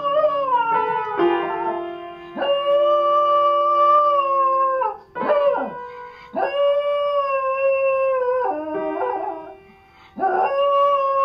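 A dog howling at the piano: several long, held howls, each about two seconds and sagging in pitch at the end, with piano notes from its paws pressing the keys ringing between them.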